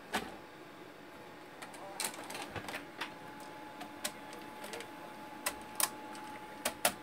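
VHS cassette pushed into the front-loading carriage of a Panasonic NV-FS 88 S-VHS video recorder, with scattered mechanical clicks and clacks from the cassette and loading mechanism and a faint steady whine from about two seconds in. The deck does not go on to thread the tape or spin the head drum, because a plug disconnected during the repair was left unplugged.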